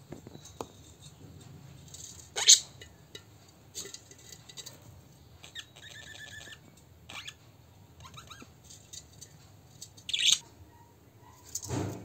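Budgerigars calling in a nest box: short, sharp, high squawks a couple of seconds in and again near the end, with brief soft chirps between them. A fuller, lower burst comes at the very end.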